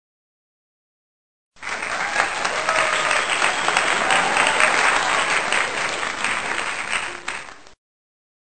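Crowd applause that starts and cuts off abruptly, lasting about six seconds.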